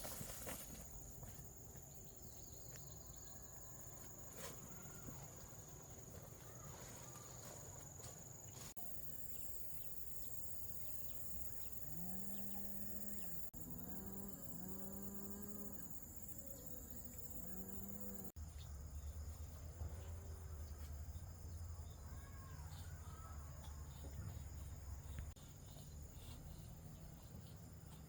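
A steady high insect drone, with a run of about five short, arching animal calls one after another near the middle.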